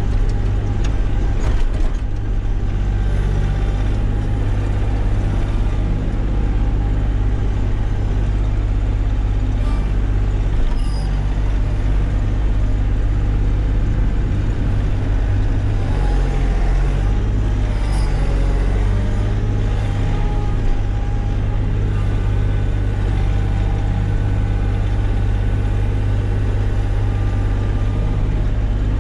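Kioti CK3510 compact tractor's three-cylinder diesel engine running steadily while the front loader works, heard from inside the closed cab.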